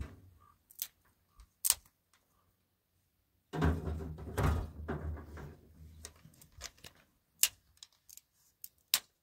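Dry sticks being broken and pushed into a sheet-metal wood stove: a couple of seconds of scraping and clattering as the branches are handled, set between single sharp clicks and knocks of snapping twigs and wood striking the stove.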